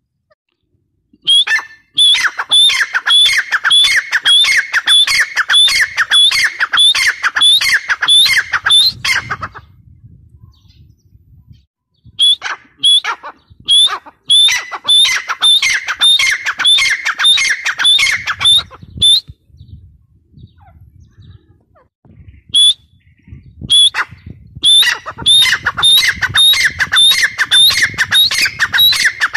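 Grey francolin calling: a rapid run of loud, sharp, repeated notes, about three a second. The calling comes in three long bouts, broken twice by pauses of a few seconds.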